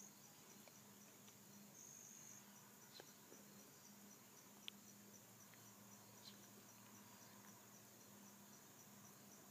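Near silence with faint background insect chirping: a high-pitched pulse repeating at an even rate, plus a few faint ticks.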